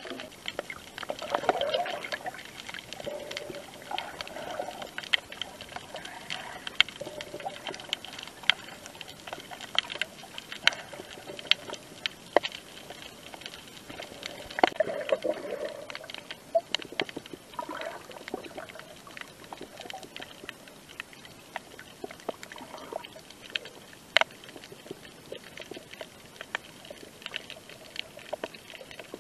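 Underwater sound picked up through an action camera's waterproof housing: muffled water gurgling and sloshing, stronger in a few spells, with many scattered sharp clicks.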